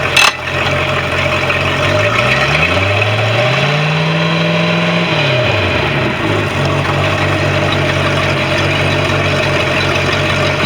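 MerCruiser 5.0 V8 sterndrive engine running, with a sharp clunk right at the start as it is put into forward gear. About two seconds in it revs up, holds for a couple of seconds, and drops back to a steady idle.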